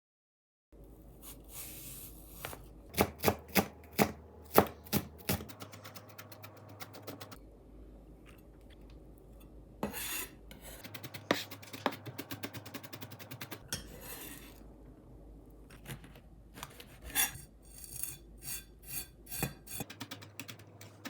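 Food-preparation sounds in a kitchen: a series of sharp knocks and clicks of utensils, with rasping and scraping between them and a quick run of ticks about six seconds in.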